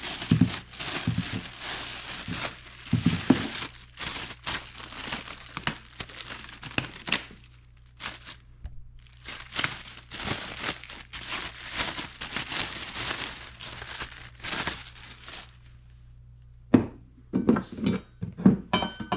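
Packaging around a new lawn-mower deck spindle assembly being crinkled and torn as it is unwrapped from its box, in long scratchy stretches with a short pause partway. A few separate knocks follow near the end.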